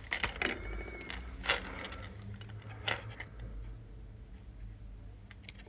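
Small metal finds, an old religious medal among them, clicking and clinking as they are handled and picked up by hand. A few light, sharp taps come mostly in the first three seconds.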